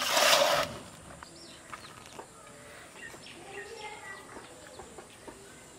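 A brief scrape of a steel ladle scooping cooked rice in a steel bowl at the start. After that it is quiet, with faint bird chirps.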